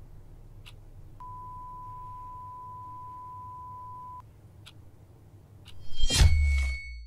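A clock ticking about once a second. A steady, high-pitched beep comes in about a second in and holds for three seconds. Near the end a loud, deep, glitchy impact hit comes in and cuts off abruptly.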